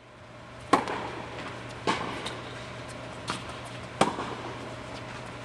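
Tennis rally: a ball struck by rackets three times, a second or two apart, with one softer knock between. Each hit echoes in the large indoor tennis hall over a low steady hum.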